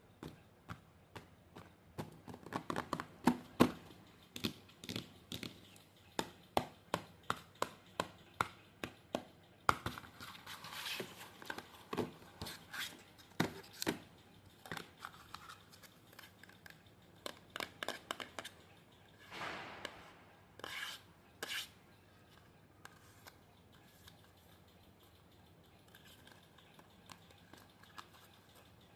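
Paper craft pieces being handled: a long run of sharp taps and clicks, about two a second, then a few short paper rustles and tearing-like swishes, fading to quiet for the last several seconds.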